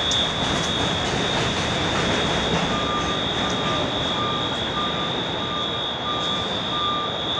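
Steady street and traffic noise with a constant high whine, joined about a third of the way in by a vehicle's reversing beeper sounding nearly twice a second.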